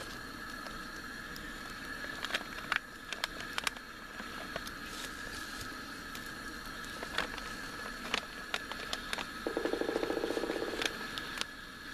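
Two-burner camp stove hissing steadily under pots of water heating, with scattered sharp crackles and clicks. Near the end a short rapid rattle lasts about a second and a half.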